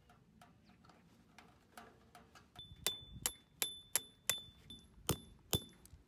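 A metal hammer driving a metal tent peg into gravel ground: about eight sharp strikes, two to three a second, each with a high metallic ring.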